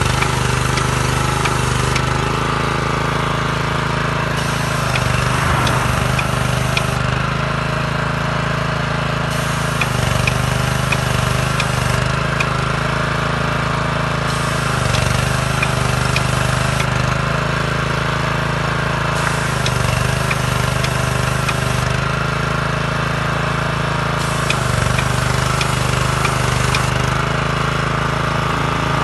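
Walk-behind road line-marking machine's small single-cylinder petrol engine running steadily, powering the paint sprayer while a white road line is laid.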